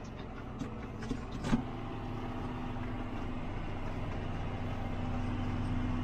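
Farm tractor running steadily, heard from inside the cab while it pulls a wheel hay rake. There are a few light knocks and rattles in the first second and a half, then a steady hum that grows slowly louder.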